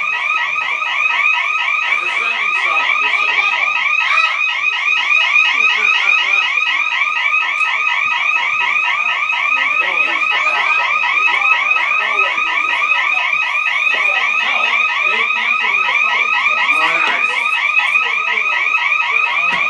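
House alarm siren sounding without a break: a loud electronic tone warbling rapidly over and over. It is going off by itself, with no cause found.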